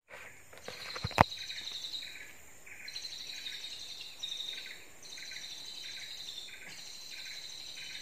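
Forest ambience: a steady high insect trill, with short bird chirps repeating about twice a second underneath. A single sharp click about a second in.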